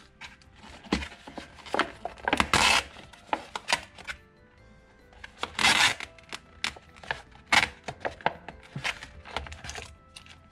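Crinkling and rustling of a cup-noodle lid's plastic film and foil as it is peeled back and sauce sachets are handled, in a run of sharp crackles, the loudest about two and a half and six seconds in. Soft background music underneath.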